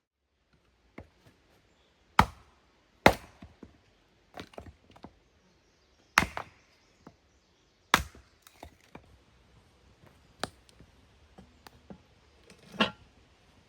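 A series of sharp chopping knocks and cracks: about six loud strikes at uneven intervals, with smaller clicks and taps between them.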